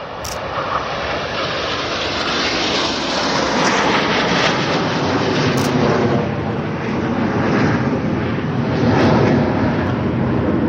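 A formation of Aermacchi MB-339 jet trainers, with Rolls-Royce Viper turbojets, flying low overhead. Their jet roar swells over the first few seconds, then stays loud and even.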